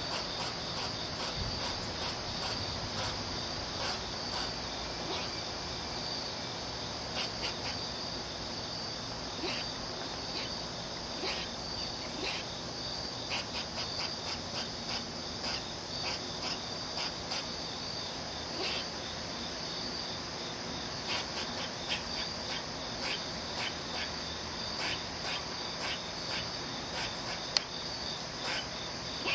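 Squirrel scolding with short, sharp alarm calls, repeated in irregular runs, over a steady high-pitched drone.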